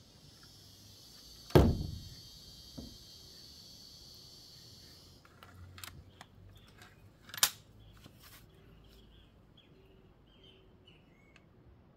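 Break-barrel 5.5 mm spring-piston air rifle being cocked and readied: a heavy metallic clunk about one and a half seconds in, a lighter click a second later, then several clicks and a sharp snap in the middle. A steady high hiss fills the first few seconds, and birds chirp faintly near the end.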